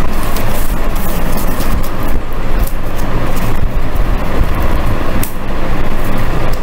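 Steady, loud rumbling background noise with scattered light clicks and rustles as a plastic board is pressed and shifted on newspaper.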